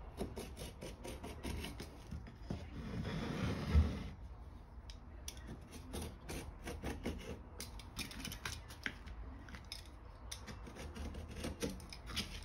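Sharp blade cutting a round patch out of a grey hot tub repair-patch sheet on a wooden chopping board: a run of small clicks and scratches, with a louder knock about four seconds in.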